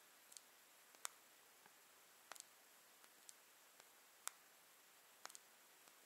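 Nitecore EDC27 flashlight's switches being pressed while it is locked out: several faint, sharp button clicks at irregular intervals, the loudest about four seconds in.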